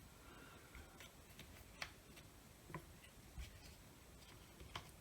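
Near silence, with a few faint, scattered clicks from the opened cordless multi-tool's parts being handled.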